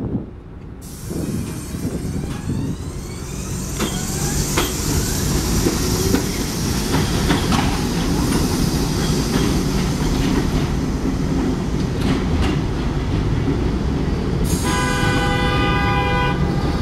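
An R62A subway train on an elevated line rolls in with a steady rumble and its wheels clacking over rail joints. Near the end its horn sounds one steady blast of about two seconds.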